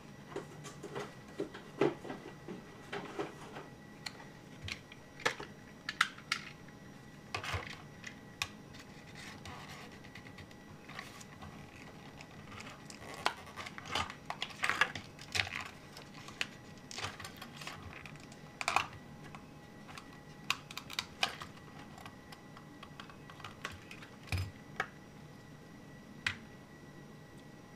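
Plastic blister packaging and card backing being handled and opened: scattered sharp clicks, taps and crackles in irregular runs with short pauses.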